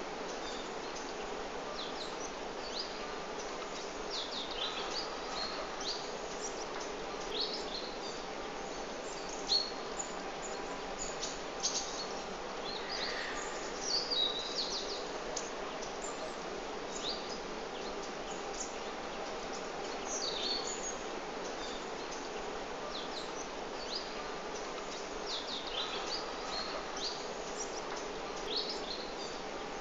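Small birds chirping, short quick calls scattered irregularly throughout, over a steady background hum of outdoor noise.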